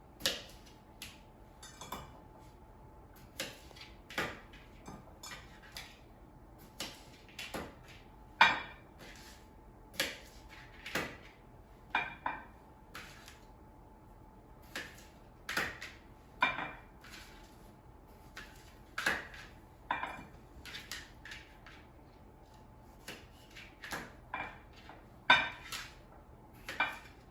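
Knife cutting red potatoes into pieces: irregular sharp knocks of the blade going through and striking the cutting board, with the cut pieces clattering into a dish.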